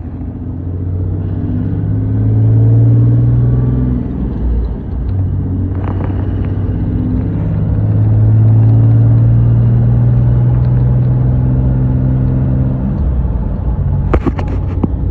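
2018 Ram 3500's Cummins turbo-diesel pulling through the gears under gentle throttle, its pitch rising, dropping at a gear change about four and a half seconds in, then rising again and holding steady. The new dual-disc clutch is being broken in and is not slipping. A few sharp clicks sound near the end.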